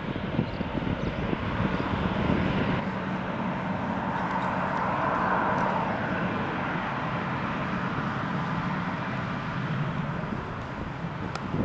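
Jet airliner engines running with a steady roar. After a cut about three seconds in, the sound is an Embraer E190's General Electric CF34 turbofans on the runway, briefly swelling a little in the middle.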